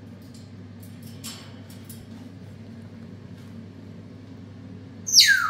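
African grey parrot giving one short, loud call that falls steeply in pitch, near the end, over a steady low background hum and a few faint clicks.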